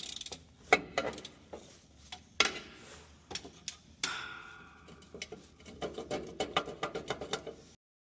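Metal tools knocking and clanking on metal: a few separate strikes, some with a short ring, then a quick run of lighter taps at about five a second near the end.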